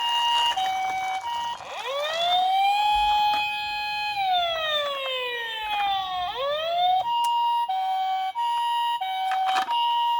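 Electronic ambulance siren. It starts on a two-tone high-low alternation, switches about two seconds in to a wail that rises, holds and falls and then rises again, and goes back to the high-low two-tone for the last few seconds.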